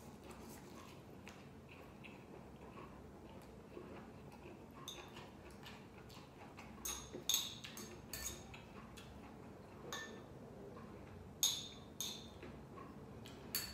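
Eating utensils clinking against dishware during a meal: a handful of light, sharp clinks with a brief ring, most of them in the second half.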